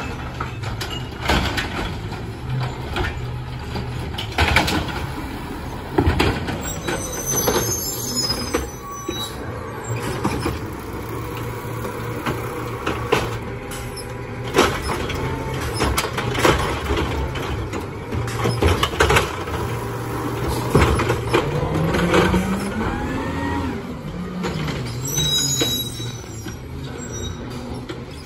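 Natural-gas Peterbilt 520 side-loader garbage truck running while its automated arm grabs, lifts and dumps recycling carts, with repeated clunks and bangs of carts and their load in the hopper over the steady engine. A whine rises about three quarters through, and brief high squeals come about a quarter in and again near the end.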